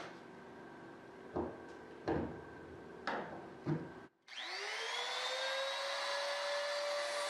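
Hand-held router: a few short knocks as it is handled against the template, then about four seconds in its motor starts, spinning up with a rising whine that settles into steady high-speed running.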